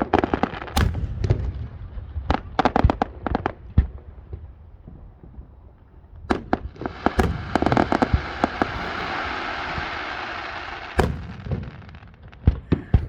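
Aerial fireworks exploding in quick clusters of sharp bangs and pops. From about seven seconds in, a dense steady hiss holds for some four seconds, then a few more bangs near the end.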